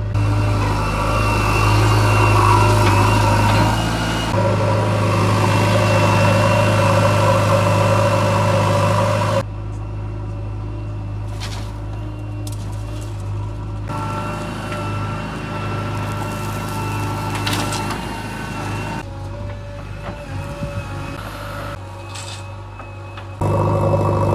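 JCB earth-moving machine's diesel engine running steadily under work, with a thin steady whine above it. The loudness changes abruptly several times.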